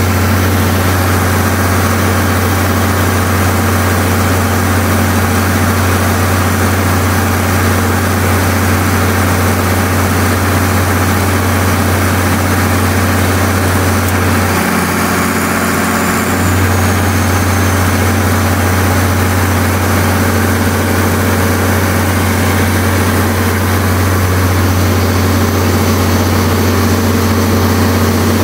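Allis Chalmers 670T 426-cubic-inch turbocharged diesel running a 100 kW Onan generator set, a loud steady drone that eases off for a couple of seconds about halfway through. The engine is warming up after a cold start following its submersion in flood water.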